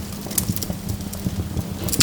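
Burning wood logs crackling, with irregular sharp snaps and pops over a low steady rumble of the fire; a quick bunch of snaps comes near the end.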